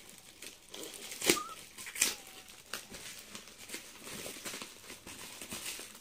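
Clear plastic packing crinkling and rustling as it is pulled and peeled by hand from a stack of comic books. The crackling is irregular, with two sharper, louder crackles about one and two seconds in.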